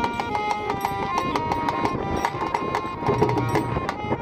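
Bengali folk-song music: an instrumental passage, a melody of short held notes over a knocking percussion rhythm.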